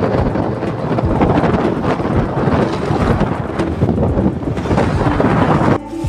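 Wind buffeting the microphone while riding an electric scooter: a loud, rumbling rush. It cuts off abruptly near the end.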